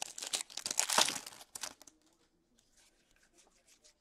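Plastic wrapper of a hockey card pack being torn open and crinkled by hand: a quick run of crackling rustles that stops about two seconds in.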